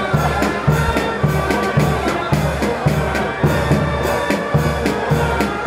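Marching band of saxophones and brass playing a march, with a drum beat about twice a second over a repeating bass line.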